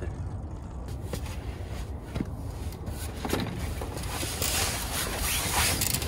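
Wind buffeting the microphone: a steady low rumble, with a broader hiss that swells about four seconds in.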